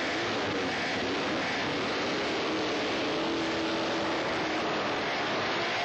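Several classic racing motorcycle engines running and revving together as the bikes pull away from the start, a steady dense engine drone with pitches that waver up and down.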